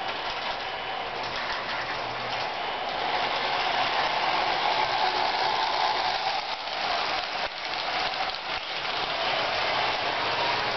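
Electric three-rail toy trains running on tubular metal track: a steady whir and rumble of motors and wheels, getting a little louder about three seconds in.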